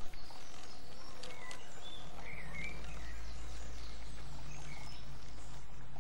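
Small birds chirping in a garden, with a low steady hum joining about two seconds in as the battery-powered 16mm-scale model diesel locomotives run slowly along the track pushing their hoppers. A short click at the very start.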